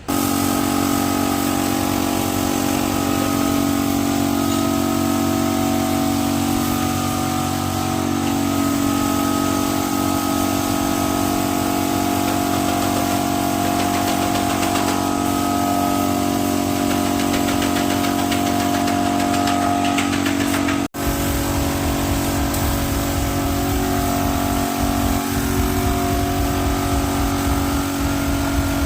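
A machine motor running steadily with a constant hum, briefly cut off about twenty seconds in and then running on.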